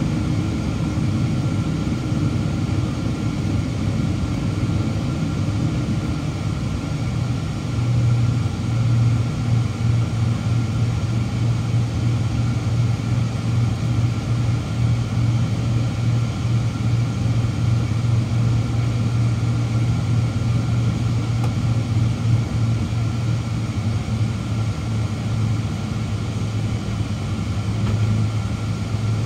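Boeing 777-200's GE90 turbofan engines heard inside the cabin from a seat beside the engine, a steady rumble while the airliner taxis before takeoff. A deeper steady hum comes in about seven seconds in and holds.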